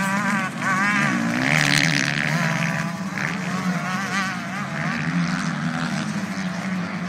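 Several motocross motorcycle engines racing, their pitch rising and falling as the riders work the throttles, over a steady low hum.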